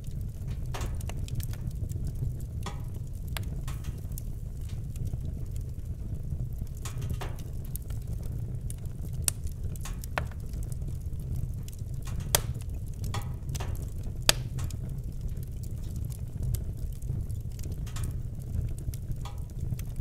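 Wood fire burning, with a steady low rumble and irregular crackles and pops from the burning logs; a few sharper pops stand out in the middle.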